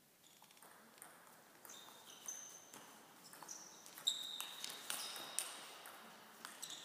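Table tennis doubles rally: the celluloid-type ball clicking off bats and table in quick, irregular succession, growing louder after about two seconds, with a few short high squeaks mixed in.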